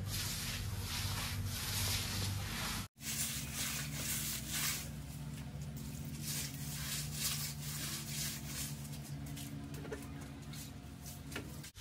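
Hands smearing a wet cow-dung and water paste across a mud floor: repeated, uneven rubbing and scraping strokes. The sound cuts out abruptly about three seconds in, then the rubbing resumes.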